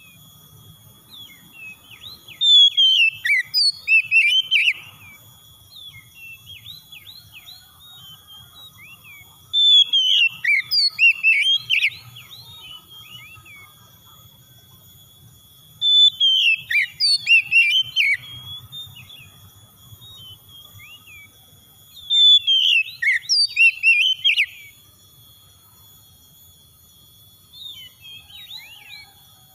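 Oriental magpie-robin singing in four loud bursts of quick, varied whistled phrases, spaced several seconds apart, with softer scattered chirps in between. Faint steady high tones run underneath.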